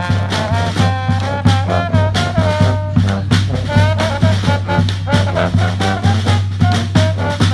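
A brass band playing an upbeat swing-style tune: several horns carry the melody over a steady drum beat.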